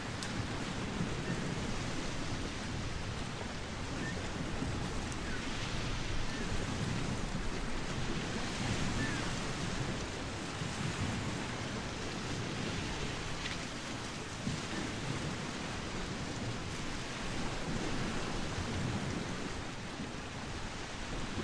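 Wind buffeting the microphone outdoors: a steady rushing noise with a gusty low rumble that rises and falls.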